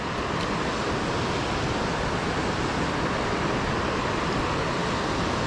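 Steady rush of creek water running over rocks and riffles.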